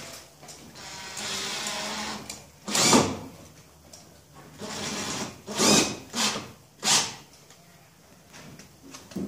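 Drill-driver driving screws through the front reveal of a shower niche into the stud wall, in two short runs, with four sharp loud clacks in between.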